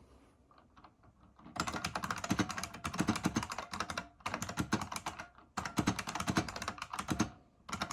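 Fast typing on a 1986 IBM Model M 84-key buckling-spring keyboard: dense runs of key clacks, with short pauses between runs, starting about a second and a half in.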